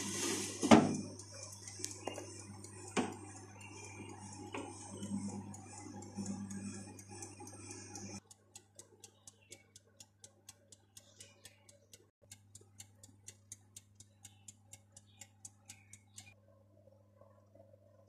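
Electric oven running with a steady hum and hiss and a few sharp knocks, the loudest about a second in. About eight seconds in this gives way to a rapid, even ticking, about five a second, which stops about two seconds before the end.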